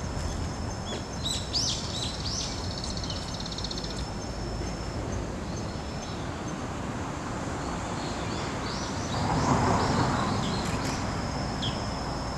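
Outdoor ambience: small birds chirping in short arched calls, over a steady high thin whine and a constant low rumble. A louder rush of noise swells about nine seconds in and fades again.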